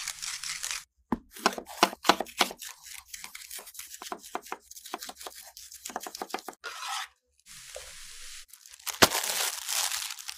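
A wooden salt mill grinding, then a knife cutting red bell pepper on a wooden board in a run of quick knocks. Near the end comes plastic wrapping crinkling and tearing.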